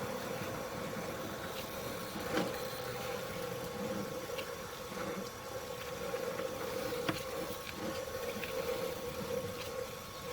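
A steady mechanical hum with a few light clicks and knocks scattered through it.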